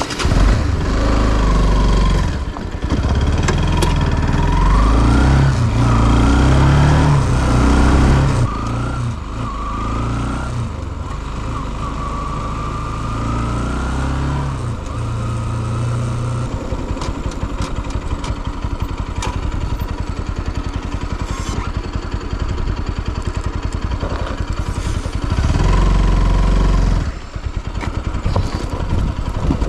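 Motorcycle engine running under throttle, its pitch rising and falling, then settling about halfway into a steady, fast, even thump like an idle. Near the end it revs briefly once more.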